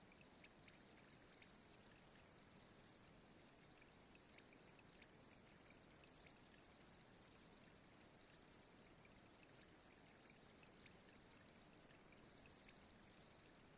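Near silence: a faint hiss with a faint, high-pitched pulsing tone that drops out briefly twice.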